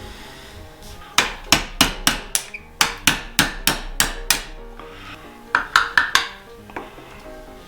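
Hammer tapping on a distributor being taken apart to shim its worn, sloppy shaft: a quick run of about a dozen sharp strikes, then a few more near the end.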